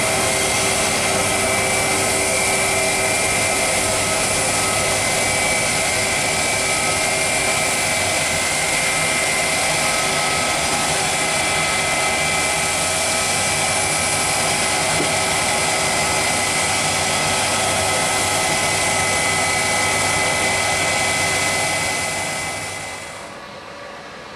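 Boeing 777 twin jet engines at takeoff power: a steady, loud jet roar with a constant whine through it. The sound drops away to a much lower level near the end.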